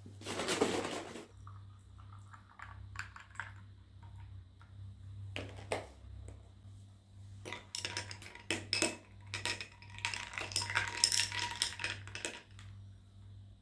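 Dishes and utensils clinking and clattering as they are handled, with a brief rushing sound at the start and a dense run of clatter in the second half, over a steady low hum.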